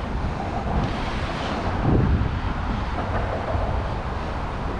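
Steady rush of water pouring over a small spillway, with wind rumbling on the microphone and a brief swell about two seconds in.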